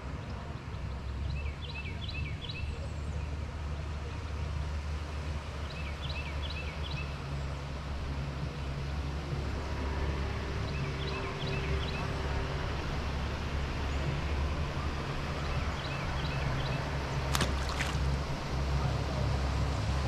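Steady low motor-like rumble, with a bird repeating a short phrase of quick chirps four times, about every four to five seconds. Two sharp clicks come near the end.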